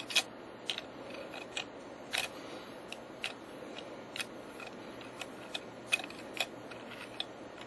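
Scattered light clicks and taps from handling an Olympus 35ECR rangefinder camera's metal body as its battery cover is closed over the button cells, a dozen or so small irregular clicks.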